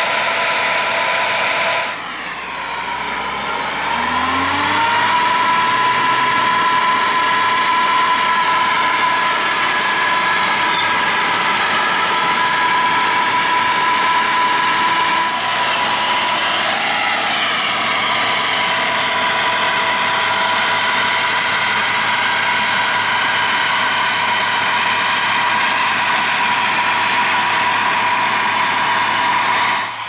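Massey Ferguson 9895 combine harvester at work threshing wheat: a loud, steady mechanical whine from the machine's drives over the engine. The whine drops about two seconds in, then rises back up to a steady pitch over the next few seconds.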